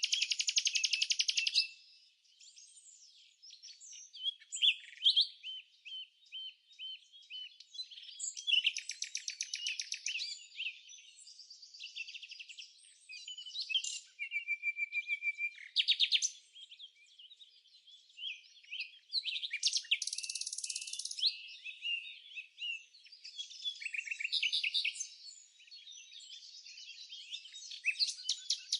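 Several songbirds singing: bouts of chirps, fast trills and rattling note series, with short pauses between phrases and one steady whistled note about fourteen seconds in.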